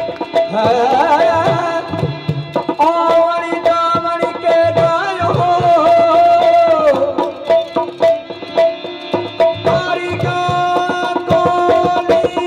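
Rajasthani folk music: a voice singing in sliding phrases over the steady held notes of a harmonium, with hand-drum beats.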